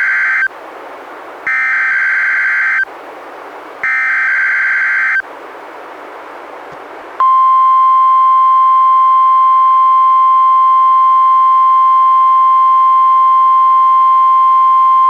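NOAA Weather Radio weekly test received on a weather radio: the end of one SAME digital header data burst, then two more identical bursts about a second long each, with radio hiss between them. About seven seconds in, the steady 1050 Hz NWR warning alarm tone starts and holds.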